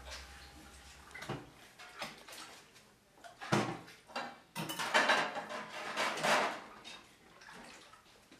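Kitchen cookware being handled: a metal baking tray and pans clattering, with a few sharp knocks and a louder stretch of rough scraping noise around the middle.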